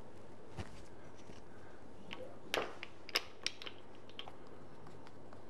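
Light clicks and knocks of the Amaran F21x's metal bracket being fitted onto a boom arm's grip head: a single click early, then a quick cluster of five or six sharp clicks a few seconds in, over a faint steady hum.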